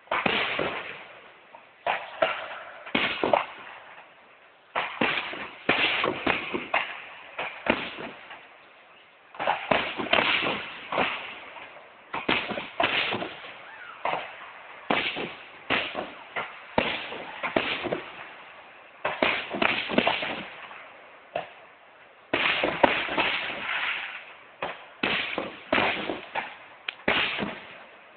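Fireworks display: many sharp bangs, some in quick clusters, each trailing off in an echo, with a few short lulls between volleys.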